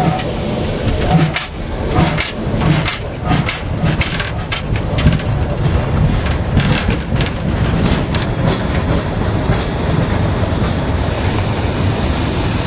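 Austrian class 638 steam locomotive (ex-Prussian P8) pulling away slowly, heard from the footplate. Sharp exhaust beats come closer together over the first several seconds, then give way to a steadier rumble as it rolls.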